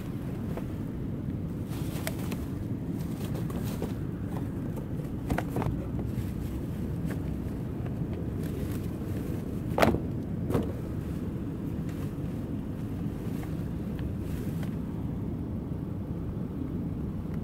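Picture books being handled and set into a cardboard box among plastic bags, with a few short knocks, the loudest about ten seconds in, over a steady low rumble.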